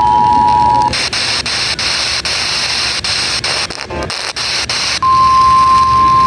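The two-tone Emergency Alert System attention signal ends about a second in. Radio static with regular clicks follows for about four seconds. At about five seconds the steady single-pitch NOAA Weather Radio warning alarm tone begins, signalling that a warning is about to be broadcast.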